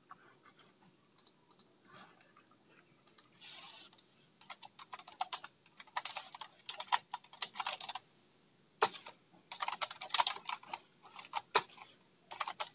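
Typing on a computer keyboard: quick bursts of key clicks, starting after a few near-silent seconds.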